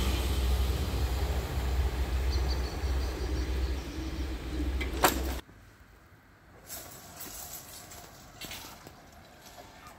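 Passenger train rumbling away from a level crossing, its noise fading, with a faint high whine from the wheels and rails partway through. About five seconds in the sound cuts off abruptly to a much quieter background with a few faint knocks.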